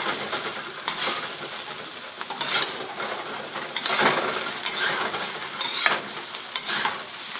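Day-old rice and peas sizzling in a hot carbon steel wok, with a metal ladle and spatula scraping and turning it in brief strokes about once a second.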